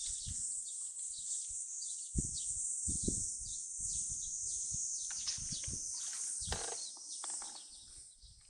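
Outdoor waterside ambience: birds chirping over a steady high-pitched hiss, with irregular low rumbles. It fades somewhat near the end.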